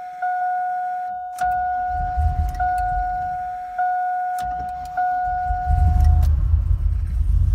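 Dashboard warning chime dinging about once a second while the starter cranks the 2002 Silverado's swapped-in 6.0-litre V8. The cranking breaks off briefly, then the engine catches and runs about six seconds in, and the chime stops. This is the hard-start problem the owner suspects may come from a fuel-pressure setting in the tune.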